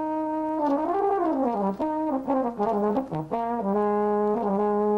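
E-flat tenor horn (alto horn) played solo: a held note, then a swoop up and back down in pitch, a quick run of short notes, and a longer, lower held note near the end.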